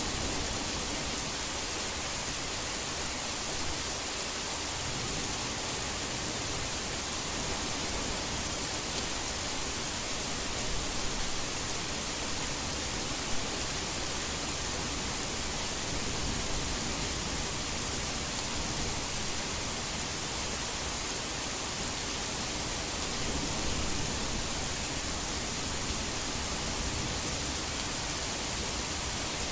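Steady heavy rain, an even, unbroken hiss.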